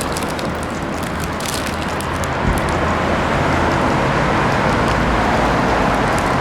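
Street traffic noise: the steady sound of passing vehicles with a low engine hum, growing a little louder about halfway through, with one short knock.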